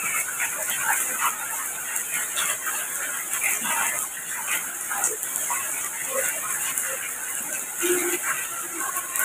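Rain falling steadily, an even bright hiss, with many short irregular sounds scattered over it.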